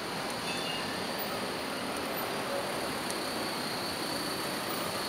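Electric low-floor tram running past on street rails amid traffic, a steady rolling hiss with a faint high whine held throughout.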